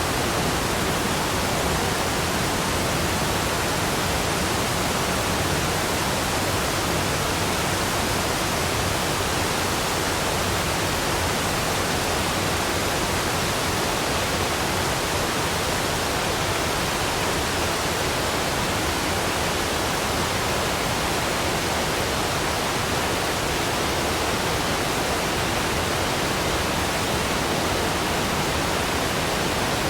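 Waterfall: falling water making a steady, even rush across all pitches, with no change in level.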